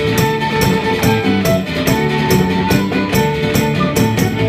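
Live Irish folk band playing an instrumental passage between sung lines, with sustained melody notes over a steady beat of crisp percussion hits about two a second.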